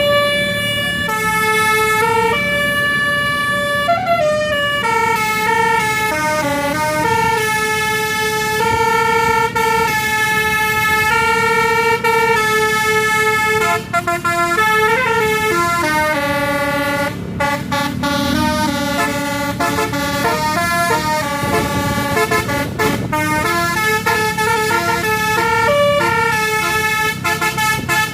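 A tour bus's multi-tone 'basuri' telolet air horn playing a melody, its notes stepping up and down every half second or so, over a steady low engine hum.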